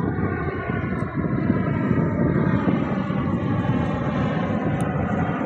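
Twin-engine jet airliner passing low overhead on its landing approach: loud, steady jet engine noise, heaviest in the low end, with a whine of several steady tones above it.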